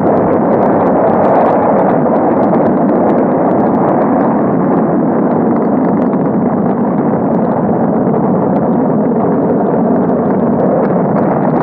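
Steady, loud rumble of Saturn V rocket engines at liftoff, with faint crackling through it.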